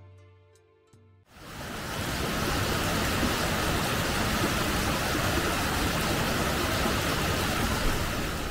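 Soft music dies away, and about a second in a steady rush of flowing water fades in and holds: water running in a garden stream.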